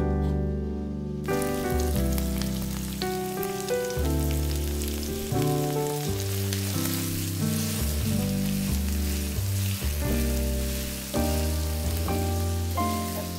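Sliced onions frying in oil in a pan, sizzling steadily from about a second in as they are stirred with a wooden spatula. Background music plays over it throughout.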